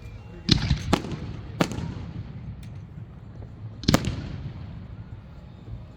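Aerial fireworks shells bursting: three sharp bangs in quick succession about half a second in, then another near four seconds, each trailing off into a rolling echo.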